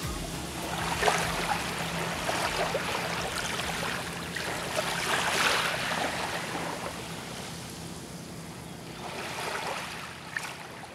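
Small waves lapping on a sandy shore, each wash swelling up and draining back about every four seconds, fading toward the end.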